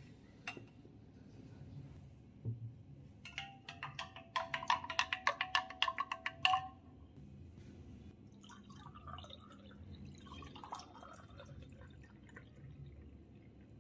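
Wooden spoon stirring orange juice in a glass jug: a quick run of ringing glassy clinks, about six a second for roughly three seconds. Then juice pouring and splashing into a drinking glass.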